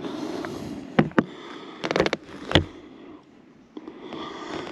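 A few short knocks and clicks from someone moving about at a boat's cabin doorway: two about a second in, a quick rattle of them near two seconds and a louder knock just after, over a low rustle.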